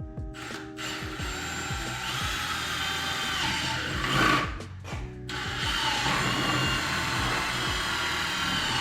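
Power drill turning a step bit through a hole, the motor running steadily under load, with a brief surge about four seconds in and a short dip just after.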